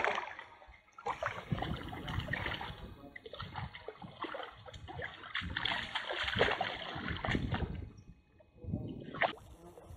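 Shallow lake water splashing and sloshing irregularly as perch are reeled in on spinning rods and thrash at the surface; the splashing dies down about eight seconds in, with one more short splash about a second later.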